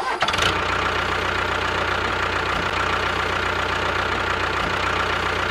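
A motor running steadily at an even speed with a fast fine rattle, the running sound of the DIY mini tractor.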